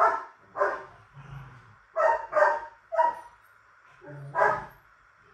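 A dog barking, about six short sharp barks in uneven bursts.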